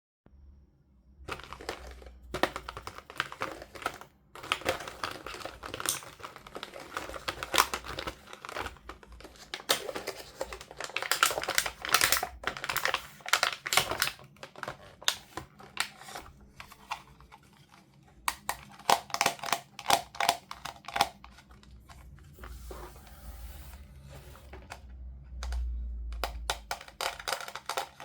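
Toy packaging being unboxed by hand: plastic and cardboard crinkling and crackling in many quick, irregular clicks and taps, with some tearing.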